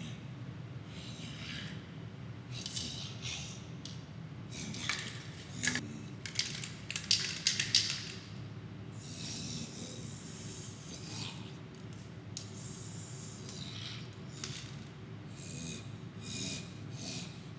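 Aerosol spray-paint can hissing in a series of short bursts and longer sprays.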